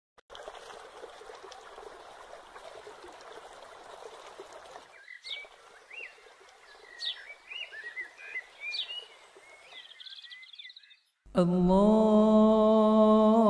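Outdoor ambience: a steady rushing noise with small birds chirping in short rising and falling calls from about five seconds in; the ambience cuts off near the end.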